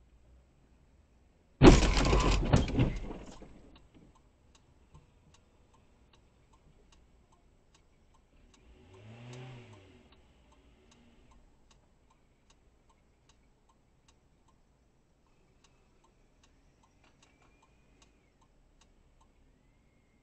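A sudden loud crash about one and a half seconds in, dying away over about two seconds: a car striking the parked camera car. Faint regular ticking follows, a little faster than once a second, with a short rise and fall of an engine near the middle.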